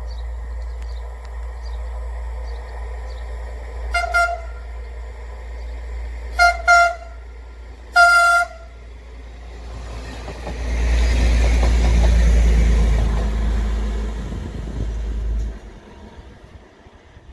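Diesel passenger railcar sounding its horn as it approaches: a short toot about four seconds in, two quick toots, then a longer blast. It then passes close by with a loud rush of engine and wheel noise, which falls away after about fifteen seconds.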